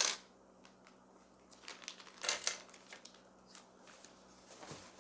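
Clear plastic bag crinkling in short bursts as small plastic sewing-machine accessories are taken out, with light clicks of the parts set down on the machine's extension table. The loudest rustle is right at the start, with more about two seconds in and near the end.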